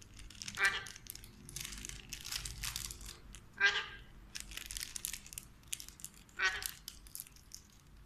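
Plastic snack wrapper crinkling and rustling in irregular bursts as an Alexandrine parakeet bites and tugs at it, with three short pitched calls cutting in.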